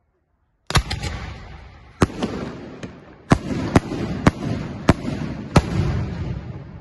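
Aerial fireworks bursting: about ten sharp bangs over some five seconds, starting about a second in, with a low rumbling echo between them that dies away near the end.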